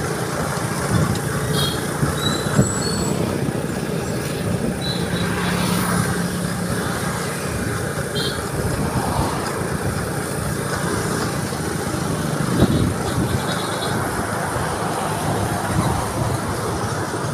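Small motorcycle riding along a road: its engine running steadily under the riders, with wind rush and passing traffic.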